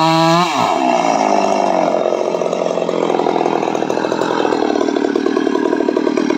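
Two-stroke petrol chainsaw at full throttle cutting into a mahogany trunk, then the throttle released about half a second in and the engine winding down to a fast, steady idle.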